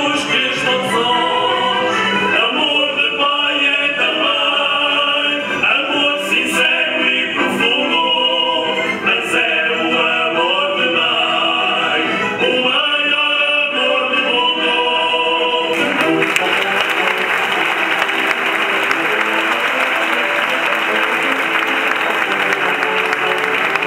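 Bailinho group singing together, accompanied by guitars and saxophones. About two-thirds of the way in, audience applause breaks out over the band, which keeps playing underneath.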